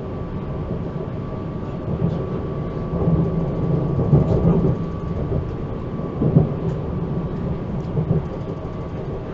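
Inside a DB class 442 (Bombardier Talent 2) electric multiple unit on the move: a low rumble of the running gear that swells and eases, with a steady high tone above it and a few faint clicks.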